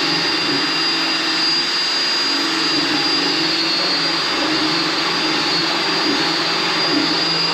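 Power drill running steadily at speed, spinning a multi-armed paint-mixer paddle through paint, with a constant high motor whine over the churning.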